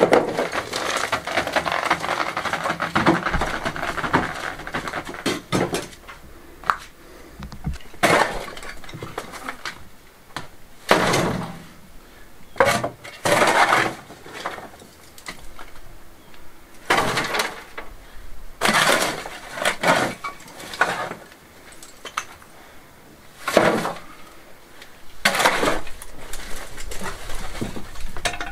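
Rubble and broken tile pieces being scraped up off a stone floor and tipped into a metal wheelbarrow. A run of dense scraping comes first, then separate clattering crashes every second or two as loads land in the barrow.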